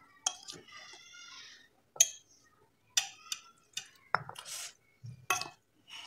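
A metal spoon stirs and scrapes gram flour in a stainless steel bowl, knocking and clinking against the bowl at irregular moments, about half a dozen times.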